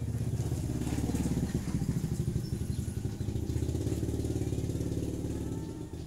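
A motorcycle engine running, a steady low note with a fast pulse that builds over the first second or so and fades near the end.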